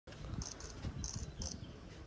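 Small creatures chirping: a handful of short, high chirps in quick succession over a low rumbling background noise.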